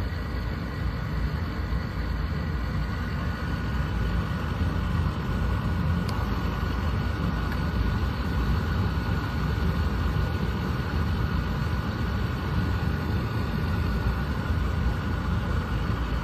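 Ferroli Silent K gasoil burner running steadily: a constant low rumble with a faint steady high tone on top, and no explosions. With the air leak at the fuel filter bowl sealed, the fuel now lights cleanly.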